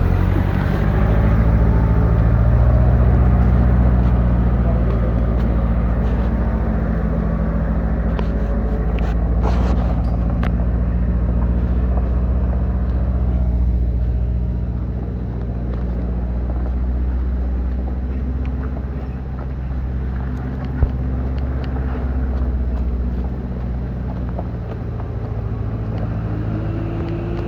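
Four-wheel-drive vehicle's engine running steadily under load as it drives over a rough off-road track, its drone slowly rising and falling in level. One sharp knock about two-thirds of the way through.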